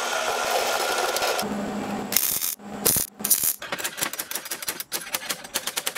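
A metal lathe running and cutting, a steady dense hiss of machining that gives way to the hum of the running machine. Then a slide-hammer puller is worked on a washer welded inside a steel axle tube, trying to pull the old sleeve out: a few heavy metallic knocks, then a quick run of sharp metallic clacks, several a second.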